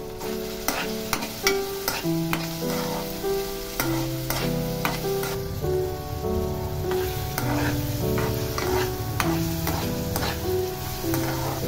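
A spatula scraping and clicking against a kadai as chopped onions are stirred while frying in oil, with a light sizzle. Background music of held notes plays underneath.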